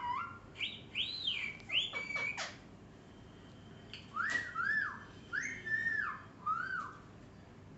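Pet green parrot whistling: two runs of clear, arching whistle notes that rise and fall, the second starting about four seconds in, with a few faint clicks between them.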